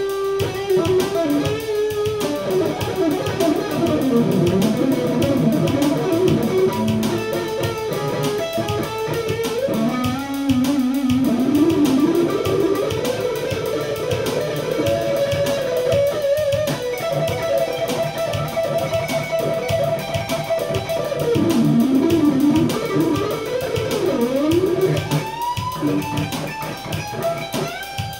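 Peavey SC-2 solid-basswood electric guitar with Kiesel alnico pickups, played through an amp in a fast improvised lead, note runs moving up and down, with one long held high note in the middle.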